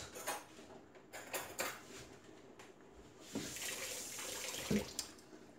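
Pots and utensils clinking and knocking on a stovetop, with a hiss lasting about a second and a half just past the middle.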